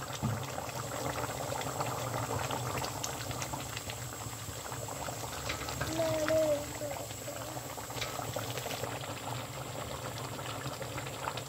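Chicken gravy bubbling steadily in a cast-iron kadai on a gas burner, with many small pops and crackles.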